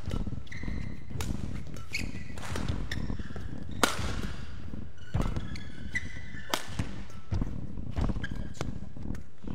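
Badminton rally: rackets striking the shuttlecock with sharp cracks every second or so, the loudest about four seconds in, mixed with court-shoe squeaks and footfalls as the players lunge across the court mat.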